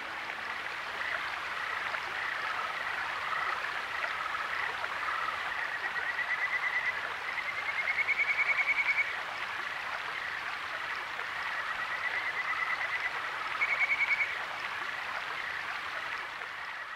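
Trilling animal calls: several rapid pulsed trills at one high pitch over a steady hiss, the loudest two about halfway through and again a little later.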